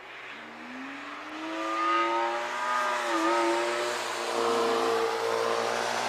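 Cars on a wet racetrack accelerating toward the listener, growing louder as they approach. One engine note climbs steadily, wavers briefly about three seconds in, then a second engine note holds, over a hiss of tyres on wet tarmac.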